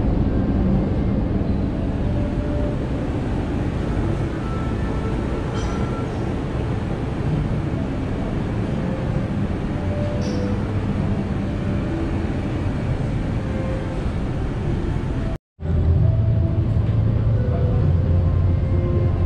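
Steady low rumbling background noise of a large, nearly empty restaurant, with a few faint short tones. About fifteen seconds in, the sound drops out for a moment and returns as a deeper, steadier rumble of street traffic, with motorbikes and cars.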